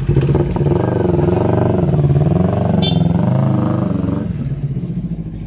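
Kawasaki Ninja 400's parallel-twin engine with an Akrapovic exhaust, revved up and down a few times, then settling back to idle about four seconds in.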